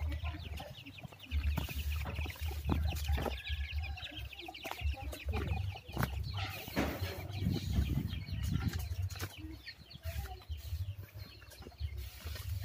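Short, repeated high animal calls, like clucking, over an uneven low rumble on the microphone.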